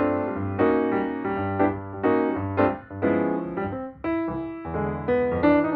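Background music led by piano or electric piano, playing struck chords at a steady pace over a bass line.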